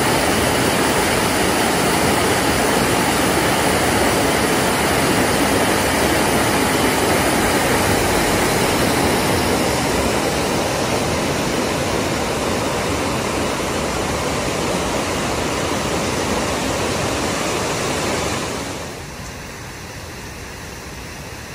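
Mountain stream rushing over rocks and small cascades: a loud, steady rush of water. About eighteen seconds in it drops to a much quieter steady hiss.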